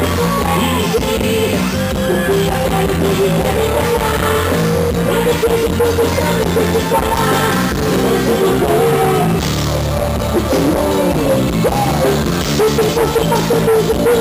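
Live forró band playing an instrumental passage: a steady bass and drum kit under a melodic lead line with some slides in pitch.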